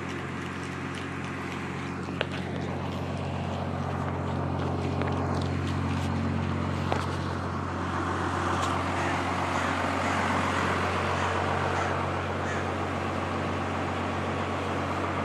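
1991 Cummins 5.9 L inline-six turbo diesel, fitted with an industrial injection pump and an HX35 turbo, running at a steady speed, heard from behind the truck. Two short clicks come about two and seven seconds in.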